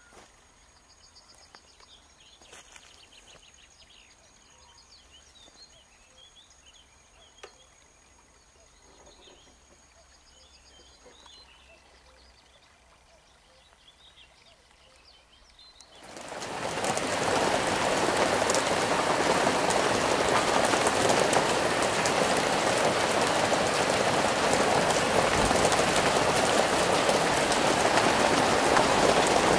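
Faint birdsong chirping over quiet outdoor air, then, about halfway through, heavy rain starts abruptly and pours down as a loud, steady hiss for the rest of the time.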